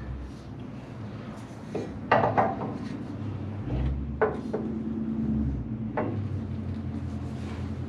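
Metal tools and parts clanking and knocking in a few separate strikes, with a short cluster of clanks about two seconds in, over a low steady hum.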